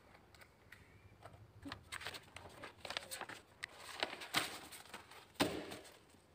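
Sheets of paper rustling and crackling as they are handled, a string of irregular crisp rustles with two louder ones about four and five and a half seconds in.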